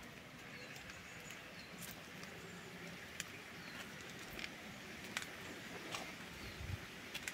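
Faint garden ambience with distant birds chirping now and then, and a few light sharp clicks.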